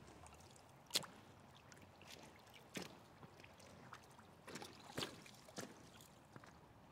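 Faint running river water, broken by a few sharp clicks and knocks, the loudest about a second in and a cluster around the middle.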